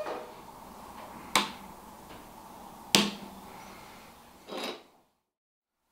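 Handling noise: three sharp clicks and knocks about a second and a half apart as a phone and its charging cable are handled and set down on a wooden table, then a short softer rustle before the sound cuts off suddenly.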